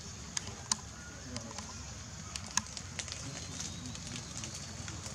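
Outdoor background with a steady low rumble and a scattering of sharp clicks, the two loudest under a second in and about two and a half seconds in.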